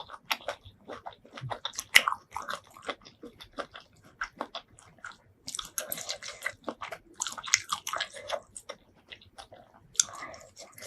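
Close-miked chewing and biting of seafood: a steady run of short wet clicks and smacks, growing denser for a stretch about halfway through and again near the end.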